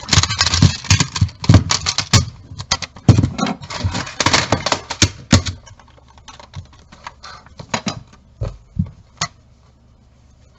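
Small hard objects being handled and set down, clicking and clattering rapidly for about five seconds, then only a few scattered clicks.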